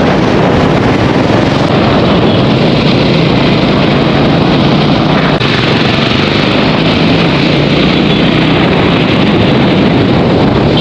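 Steady rush of wind on the microphone, with a motorcycle's engine running, while riding along a road in traffic.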